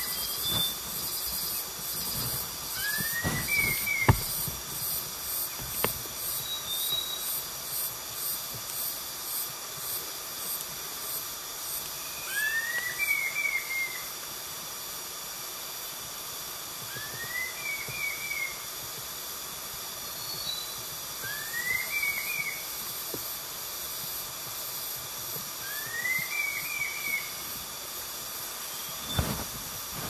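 Red-tailed laughingthrush singing: a short whistled phrase, a rising slur that breaks into a quick run of three or four notes, given five times about every four to five seconds, over a steady high-pitched hiss.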